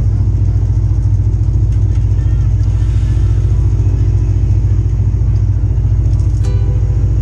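Four-wheeler (ATV) engines idling close by, a steady low rumble with an even pulse.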